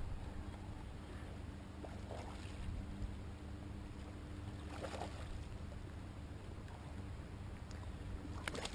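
Faint, steady low hum of a distant boat engine, with a few soft splashes of water.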